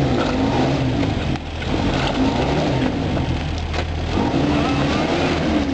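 Off-road 4x4's engine running, its pitch rising and falling as it revs up and down.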